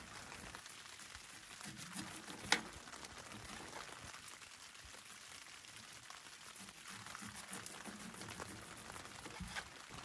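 Marinated steak sizzling quietly in a pan on a wood stove, a faint steady crackling hiss, while the meat is cut up in the pan with plastic utensils. About two and a half seconds in, one sharp tap of a utensil against the pan.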